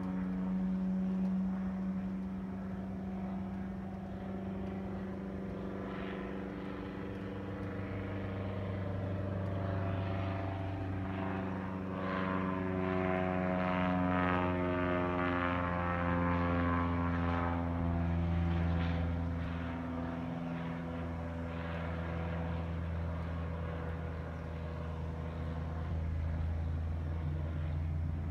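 Single-engine floatplane's propeller engine droning steadily as it flies past, its pitch slowly sliding as the plane passes and banks.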